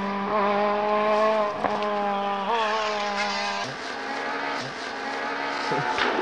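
Renault Clio rally car's engine running at high revs at speed, its pitch climbing and dropping in steps with each gear change and lift, lower and quieter in the second half as the car draws away.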